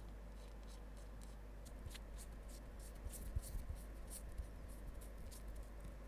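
Fingers handling a small aluminium RC shock absorber, making faint irregular scraping and clicking, with a few soft knocks about three to four seconds in.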